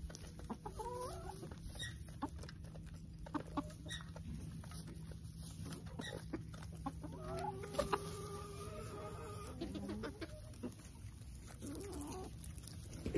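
Chickens clucking as they peck at black soldier fly larvae, with a short call about a second in and a longer drawn-out call about seven seconds in. Scattered sharp taps run throughout over a steady low hum.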